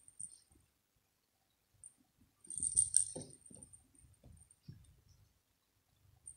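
Small bell inside a toy ball jingling in short bursts as a cat plays with it, the loudest jingling about halfway through. Soft thumps and rustles go along with it.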